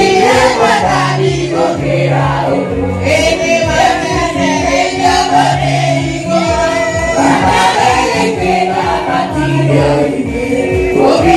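Gospel praise music: a choir of voices singing over an amplified band with a steady beat and bass line.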